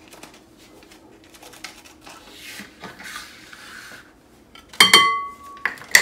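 Dry pancake mix scooped and poured with a plastic measuring cup, with soft rustling and scraping. Near the end a sharp tap sets a glass mixing bowl ringing for nearly a second as the cup is knocked against it.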